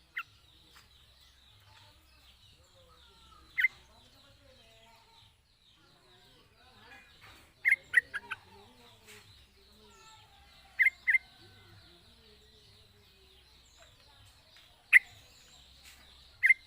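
Yellow-vented bulbul giving short, sharp calls, single notes and quick pairs a few seconds apart, over a faint steady high-pitched hum.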